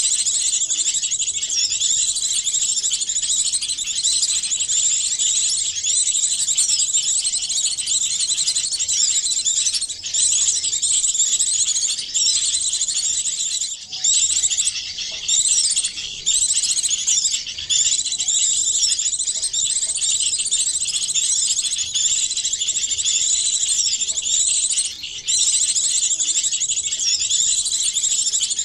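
Dense, unbroken high-pitched twittering and chirping of many small songbirds layered together: a mixed-species bird-lure call recording played to draw small birds in, with a few short gaps.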